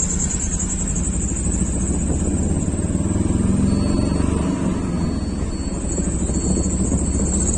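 An engine running steadily with a low rumble.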